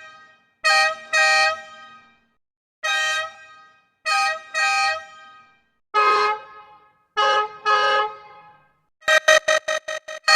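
Bus horn honking in a series of sound-effect variations: a double honk, a single, another double, a single, a lower-pitched double, then near the end a rapid string of short toots, about five a second. Each honk sounds several tones at once.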